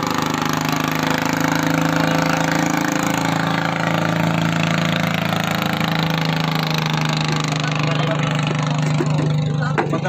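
Engine running steadily at a constant speed, a low even drone that does not change.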